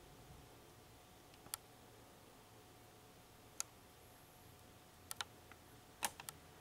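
Near-silent room tone broken by a handful of short, sharp clicks: single clicks twice, then a quick pair, then a quick cluster near the end that is the loudest.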